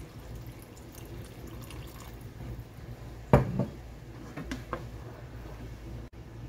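Water poured from a cup into a pan of chicken in tomato sauce, trickling and splashing into it. About halfway through comes a single loud clunk, then a few lighter knocks of a spatula against the pan as stirring begins.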